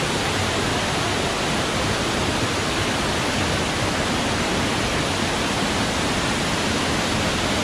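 Rocky river cascade with the water high and flowing strongly: a steady, dense rush of white water pouring over rock ledges.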